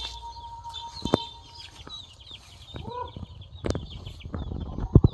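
Chickens clucking, with small birds chirping and a few sharp knocks, the loudest near the end.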